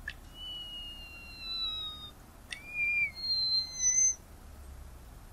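Tricolored munia singing: a short click, then thin, drawn-out whistles that fall slightly in pitch; a second click about two and a half seconds in, then more drawn-out whistles at higher pitches, ending about four seconds in.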